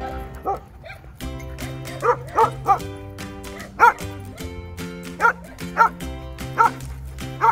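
A dog barking repeatedly: about nine sharp barks, several in quick runs, over steady background music.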